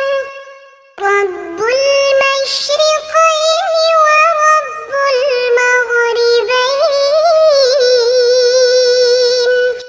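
A high voice singing long held, wavering notes in phrases, with a short break about a second in.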